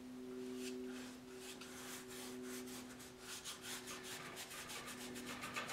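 Acrylic paint being scrubbed and dabbed onto the canvas with a painting tool: faint, irregular scratchy strokes that come thicker after about half a second, over a low steady hum.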